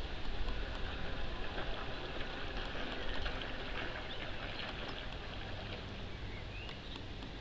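Wind rumbling on the microphone over faint open-air ambience, with a short high chirp near the end.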